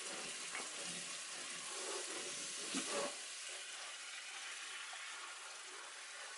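Flour, butter and grease gravy sizzling in a cast iron skillet while a spatula stirs and scrapes through it, with a short louder moment about three seconds in.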